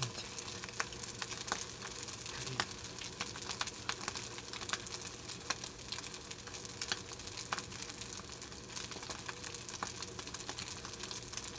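Oil crackling in a frying pan: scattered small pops over a soft steady hiss.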